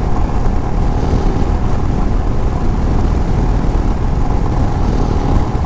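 Motorcycle riding at road speed, heard as a steady rush of wind and engine noise, heaviest in the low end.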